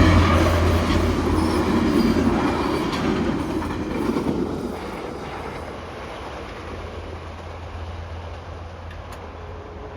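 Tri-Rail commuter train running past and moving away, its wheels clicking over the rails, the sound fading over about five seconds to a low steady rumble.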